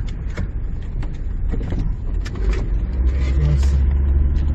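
Engine and road noise of a 2003 SsangYong Rexton SUV on the move, heard inside the cabin: a steady low drone that grows a little louder about three seconds in.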